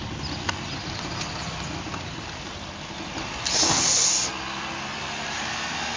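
Plastic wheelie bin wheels rolling over pavement with a steady rumble. A short hiss about three and a half seconds in lasts under a second.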